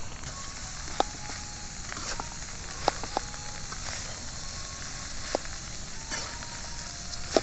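Fried rice sizzling in a wok, a steady hiss broken by a few sharp clicks.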